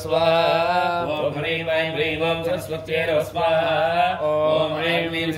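A man's voice chanting Sanskrit mantras in a steady, melodic recitation.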